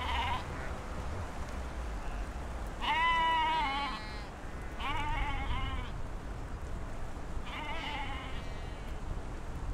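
Sheep bleating: the end of one bleat as it opens, then three more separate bleats about three, five and eight seconds in, each lasting about a second.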